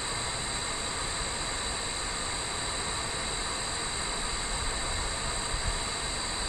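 Steady outdoor background noise: an even hiss with two constant high-pitched bands and a faint low rumble, with no shots fired.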